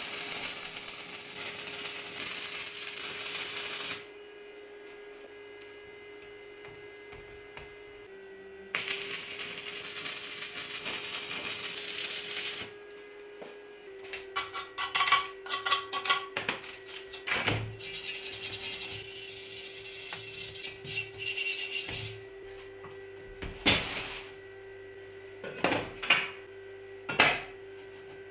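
Two few-second bursts of electric arc welding crackling and hissing on steel tubing. These are followed by rough scraping strokes of a hand tool scrubbing the fresh welds, and several sharp clanks of steel tubes being set in place.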